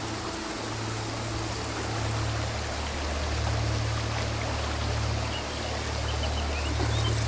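Forest river water flowing, a steady rushing noise, with gentle background music holding low sustained notes underneath. A few faint high chirps come in during the second half.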